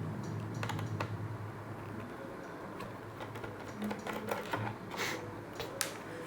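Irregular light clicks and taps of a laptop's plastic casing being handled and pried open, its small clips coming loose.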